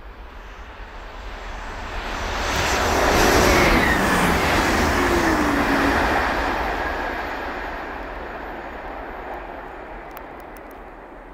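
An electric train passing: its running noise swells to a peak about three seconds in, then fades slowly, with faint tones sliding down in pitch as it goes by.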